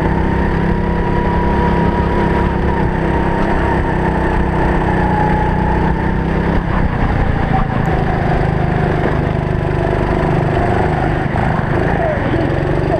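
Racing kart engine running hard under load, heard close up. Its note wavers, changes about halfway through and climbs again near the end.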